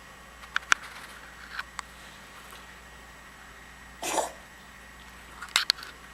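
An unwell kitten coughing in short fits: a few sharp coughs about half a second in, a longer cough about four seconds in, and a couple more sharp ones near the end.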